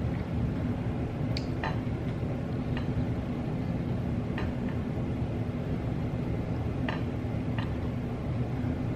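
Eating sounds: a handful of short, irregular clicks and smacks of chewing and utensils on food containers over a steady low hum.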